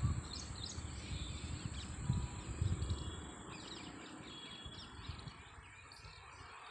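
Small birds chirping in short calls over a steady high-pitched insect drone, with a low rumble that fades about three seconds in.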